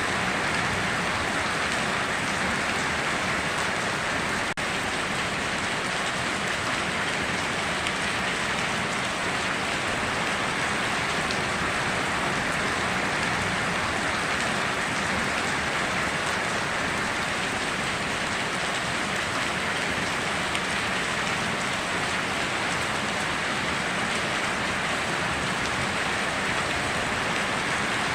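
Steady heavy rain falling and pattering on surfaces, an even rushing hiss that holds without change.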